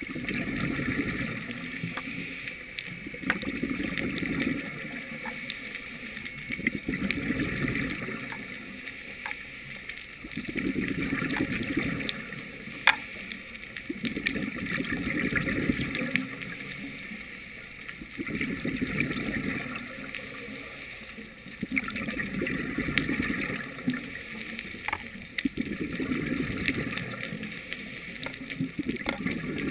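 Scuba regulator breathing heard underwater through a GoPro's housing: bubbles of each exhaled breath rumble out in bursts about every three to four seconds, quieter between breaths, with scattered sharp clicks.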